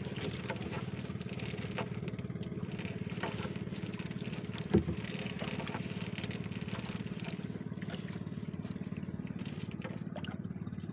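A small boat engine running steadily with a fast, even pulse, under light clicks and rustles of a fishing net being hauled and cleared by hand. One sharp knock stands out a little before halfway.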